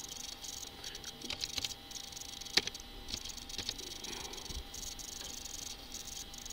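Scattered clicks of a computer keyboard and mouse, a few short taps spread out over a steady high hiss.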